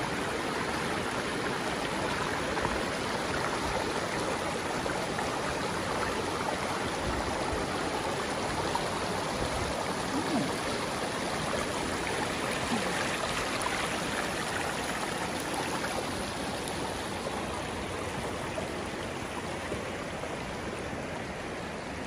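Shallow rocky stream running over stones: a steady rush of water, a little softer near the end.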